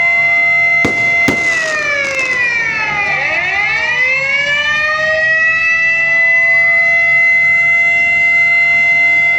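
Several sirens wailing together, sounded as the signal that the Proclamation reading is about to begin. One holds a steady tone while others slide down in pitch and climb back up. Two sharp bangs come about a second in.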